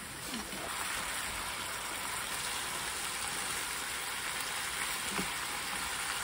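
Beef, bean sprouts and garlic chives sizzling in a frying pan as they are stir-fried with chopsticks; a steady frying hiss.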